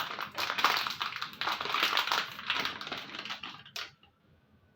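A plastic seasoning packet being opened: rapid crinkling and rustling of the packaging that stops short about four seconds in.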